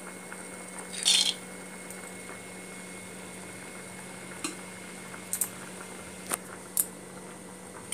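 Raw peanuts dropped into heated oil in a kadai make a short burst of noise about a second in. After it comes a steady low hum with a few faint clicks.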